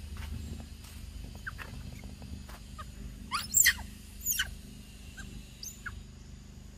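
Macaque squeaking: a cluster of short, high, rising squeals about halfway through and another about a second later, over a steady low hum.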